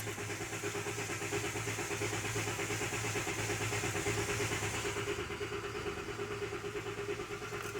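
Starter cranking the 2016 Grand Caravan's 3.6 V6 with the accelerator floored so it does not start, for a relative compression test. The cranking is steady and evenly pulsed, and the test finds no cylinder low on compression.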